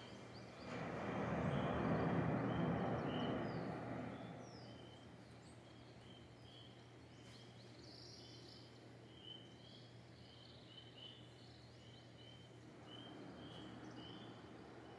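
Sea surf: a wave breaking and washing in, swelling about a second in and fading away by about four seconds. Birds call throughout in a steady run of short repeated chirps.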